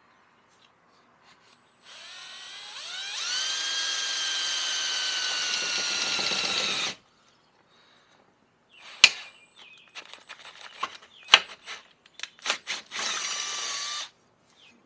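Cordless drill boring a quarter-inch hole through a metal rocker armor plate and the Jeep's body panel: the motor spins up to a steady high whine, runs for about five seconds and stops. A few sharp clicks and knocks follow, then a second short burst of drilling near the end.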